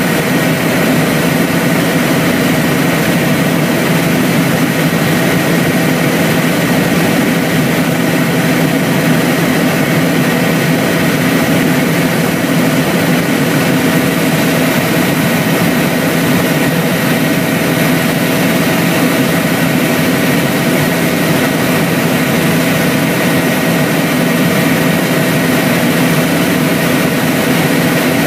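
Helicopter in flight heard from inside the cabin: the engine and rotor give a constant loud drone, with a few steady tones over a broad rushing noise.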